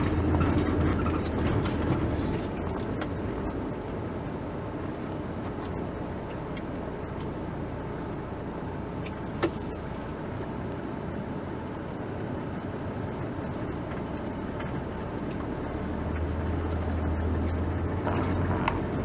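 Car running through town, heard from inside the cabin: a steady low engine hum and road noise. The hum fades after a couple of seconds and comes back near the end, with a single sharp click about halfway through.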